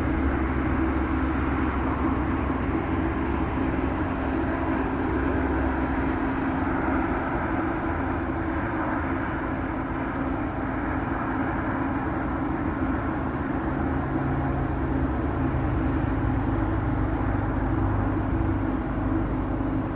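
Jet airliner's engines running at takeoff thrust through the takeoff roll: a steady noise with a low hum underneath.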